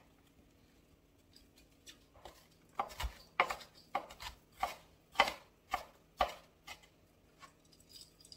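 Kitchen knife chopping an onion on a board, small-dicing it: about a dozen sharp strikes, roughly two a second, starting a couple of seconds in after a short pause and tailing off near the end.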